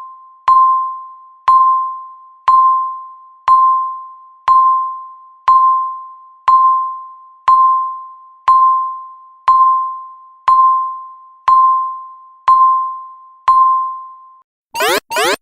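Countdown timer beeps: a single ringing tone, once a second, each fading away before the next. Near the end the count reaches zero and a loud electronic alarm noise starts, a fast rising sweep repeated about four times a second.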